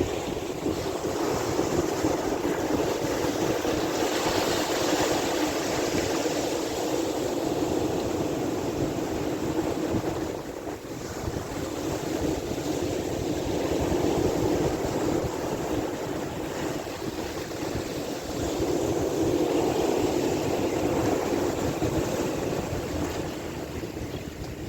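Sea waves washing in continuously, swelling and easing every several seconds, with wind buffeting the microphone in a low rumble.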